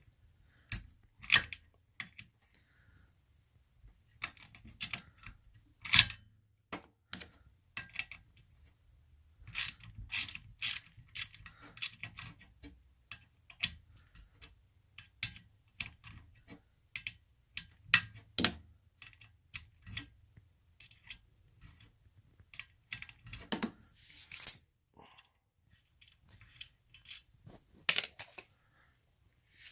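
Ratcheting hand tool clicking in irregular runs, with scattered knocks of tool and metal handling, as two screws are backed out of the washer.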